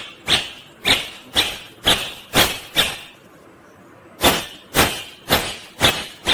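Indian ringneck parrot giving a series of short, sharp, harsh calls, about two a second, in two runs with a pause of about a second in the middle.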